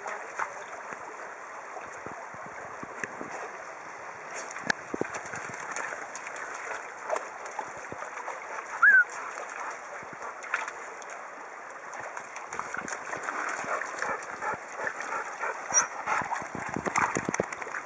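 Labrador wading and splashing in a shallow stream over steady running water, with denser, louder splashing in the last few seconds. A brief sharp chirp about halfway through is the loudest moment.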